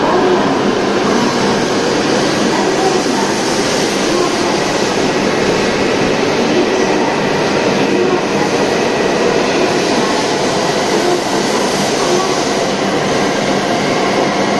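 W7 series Shinkansen train running past along an underground platform at close range, a loud, steady rush of wheels and air along the cars, echoing in the enclosed station.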